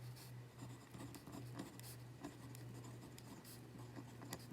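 Faint scratching of a Uni Alpha-Gel Kuru Toga 0.5 mm mechanical pencil's lead on paper, in many short, irregular strokes as someone writes.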